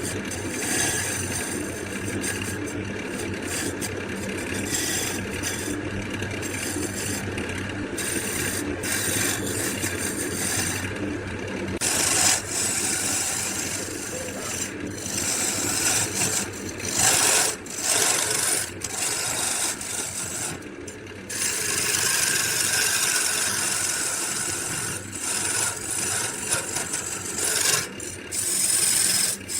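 Wood being worked with a tool: a continuous rasping, scraping noise over a steady low hum, broken by a few brief pauses in the second half.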